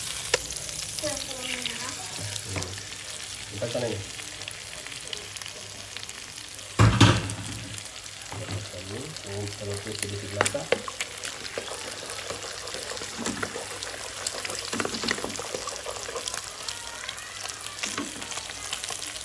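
Wild boar pork and shallots sizzling and crackling in hot oil in a wok, stirred with a wooden spatula, with eggs frying among them later on. About seven seconds in there is one loud bump.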